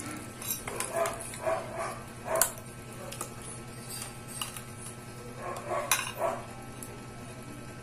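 Sharp cracks and clicks of a large prawn's shell being broken apart by hand, loudest twice, about two and a half and six seconds in. A few short animal calls sound in the background, most of them in the first second and a half.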